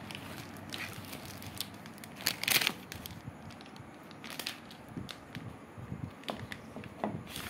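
A plastic bag crinkling and a molded paper-pulp packing tray rustling and scraping as a plastic-wrapped glass honey jar is pulled out of the tray, in irregular crackles with the loudest burst about two and a half seconds in.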